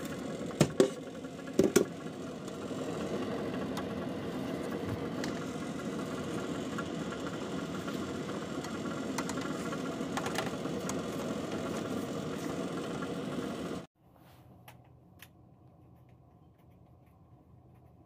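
Cabin HVAC unit's fan running with a steady hum, with two sharp metallic clacks about half a second and a second and a half in as its sheet-metal access panel is handled. Near the end the hum cuts off suddenly to a much fainter low hum.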